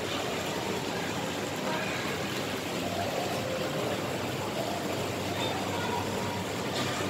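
Shopping-mall atrium ambience: a steady murmur of many distant voices blurring into an even hiss.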